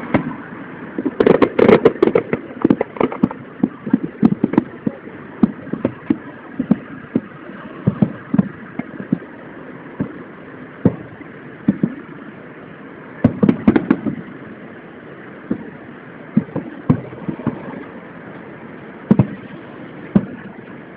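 Aerial firework shells bursting: a string of sharp bangs, with dense volleys about a second in and again about thirteen seconds in and single bangs scattered between. Heard through a mobile phone's microphone.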